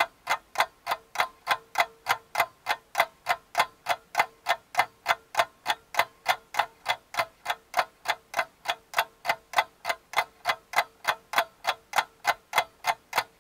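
Clock ticking sound effect, sharp even ticks at about three and a half a second, with near silence between them.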